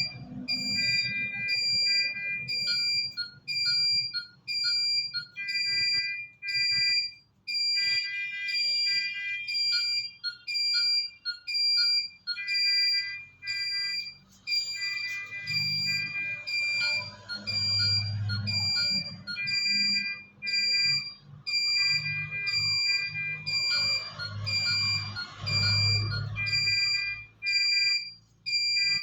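Electronic alarm beeping, like a bedside patient monitor: short high-pitched beeps repeating about twice a second, in a pattern of a few different pitches. Lower, rougher sounds join underneath in the second half.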